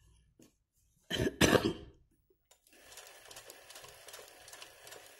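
A person coughs loudly a little over a second in, then the sewing machine starts stitching about two and a half seconds in, running steadily with rapid, even ticking as the needle works through the hooped fabric.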